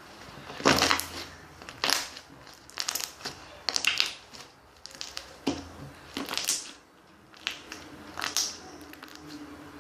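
Irregular crunching and crinkling handling noises in about a dozen short bursts, the loudest around the first second and near the middle.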